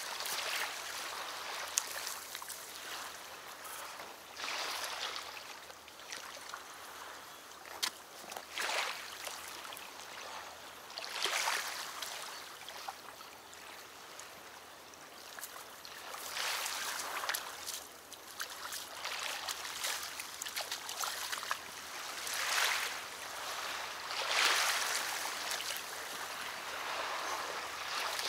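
Water rushing and washing at the river's edge, a hiss that swells and fades every few seconds, with scattered sharp clicks from handling while a chub is played and landed.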